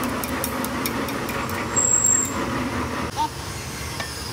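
Stick-welding arc on a hydraulic cylinder barrel: a hissing crackle over a steady low hum, easing off a little about three seconds in.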